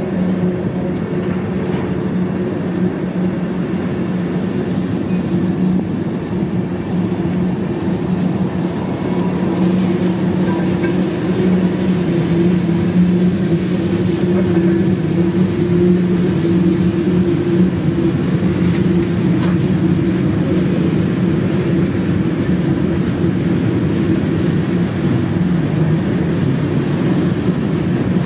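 Freight cars rolling past on steel rails: a steady rumble of wheels on track with a low drone under it, getting a little louder about a third of the way in.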